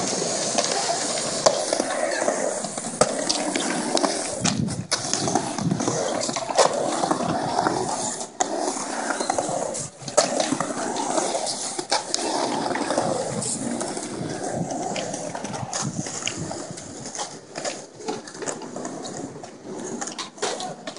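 Skateboard wheels rolling on concrete ramps, a steady roar broken by scattered sharp clacks from the board.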